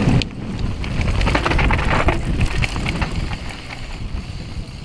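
Downhill mountain bike rolling over loose dirt and gravel, its tyres crunching, with a quick run of rattling clicks from the bike in the middle and the sound getting quieter toward the end as it slows.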